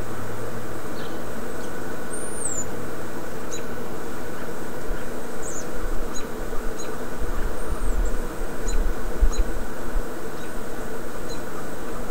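Steady outdoor background hum with faint, high bird chirps scattered through it. From about five seconds in, irregular low rumbles of wind buffeting the microphone.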